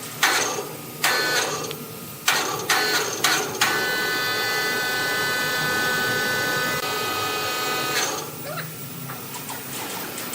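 A power tool with a high whine, started in several short bursts and then run steadily for about four seconds before it stops.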